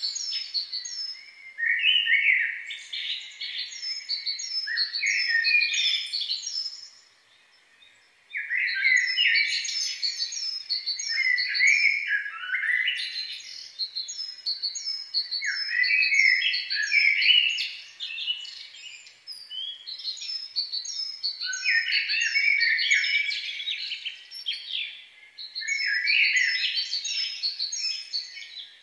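Songbirds singing: long twittering phrases with quick runs of high repeated notes, broken by a brief pause about seven seconds in.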